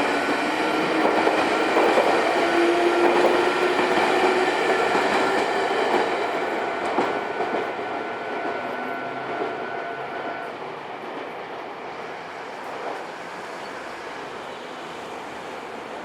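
A JR Kisei Main Line train running past over the rails, its wheels clacking, with a motor whine rising in pitch in the first few seconds. It fades steadily over the second half.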